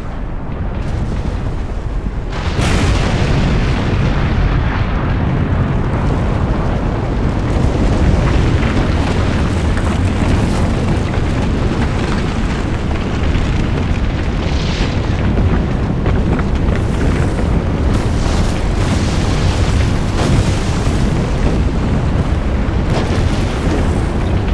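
Designed volcanic eruption sound effect. A deep rumble builds, then breaks suddenly about two and a half seconds in into a loud, continuous rumbling blast, heaviest in the lows. Repeated sharp cracks and bursts come through it from about midway on.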